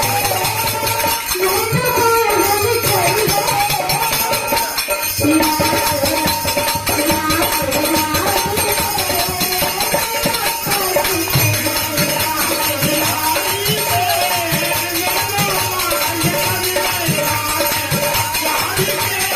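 Hindi devotional bhajan music: a wavering melody over a steady drum beat, with jingling tambourine-like percussion.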